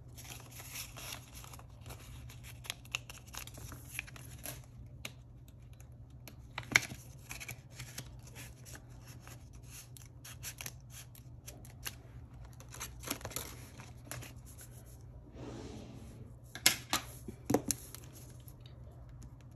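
Paper banknotes and paper savings envelopes rustling and crinkling as they are handled and folded, with many small ticks and taps. A few sharper, louder clicks come near the end.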